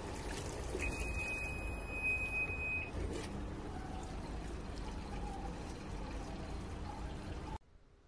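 Water running into the tub of a Midea MT740S top-load washing machine: a steady rushing trickle over a low rumble, with a high steady tone for about two seconds near the start and a click just after. The sound cuts off abruptly near the end.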